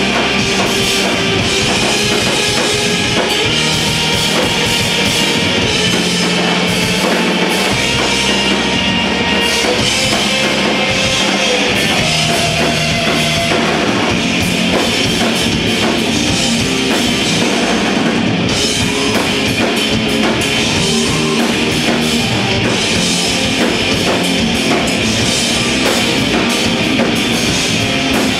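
A progressive metal band playing loud and live: two electric guitars, a bass guitar and a drum kit, with bass notes changing every second or so under rapid drumming.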